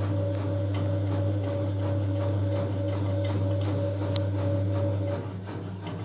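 IFB front-loading washing machine spinning its drum fast: a steady low hum with a steady motor whine and light ticking from the turning drum. About five seconds in the whine stops and the sound drops as the spin eases off.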